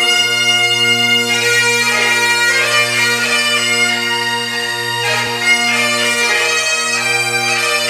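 Bagpipes playing: steady low drones under a chanter melody.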